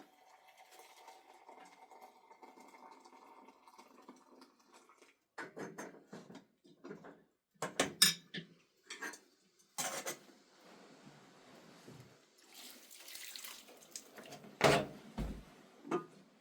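A faint steady hum, then a run of separate knocks and clatters of objects being handled, with a stretch of water splashing near the end.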